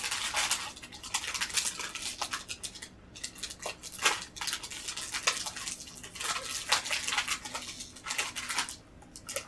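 Plastic cookie wrapper crinkling and rustling in irregular bursts as an Oreo package is worked open by hand.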